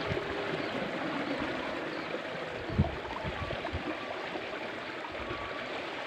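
Water running steadily along a shallow irrigation ditch in a rice paddy, with one dull thump a little under three seconds in.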